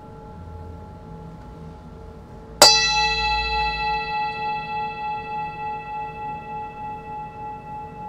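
A metal bell struck once about two and a half seconds in, ringing out with many overtones and slowly fading with a regular wavering pulse, over the lingering ring of an earlier strike.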